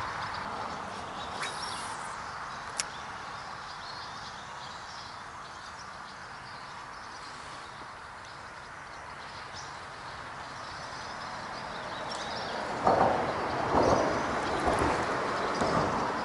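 Steady rush of road traffic from a nearby road bridge, with birds chirping over it. A sharp click about three seconds in and a few louder bumps and rustles near the end.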